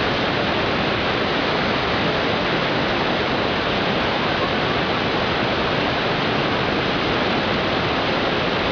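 Steady rushing noise of fast-flowing water, even and unchanging throughout.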